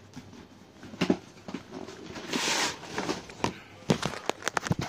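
Cardboard model-kit box being opened by hand: scattered sharp clicks and taps, a brief hissing scrape or tear about two and a half seconds in, and a quick run of clicks near the end.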